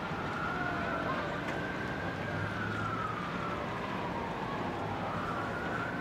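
Emergency vehicle siren wailing, its pitch slowly rising and falling over several seconds, over steady city background noise.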